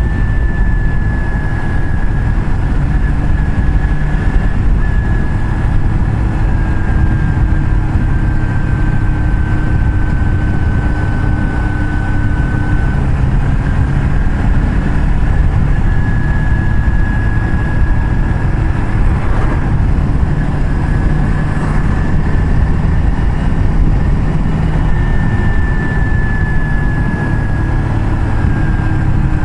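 Motorcycle riding at a steady cruising speed, with heavy wind rush on the microphone. The engine's hum holds fairly steady, sagging slowly in pitch and picking up again a couple of times.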